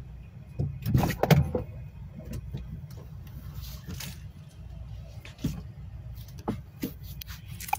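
A cluster of knocks and rattles about a second in, then a few scattered clicks, over a steady low hum: handling noise as the phone and things around it are moved about.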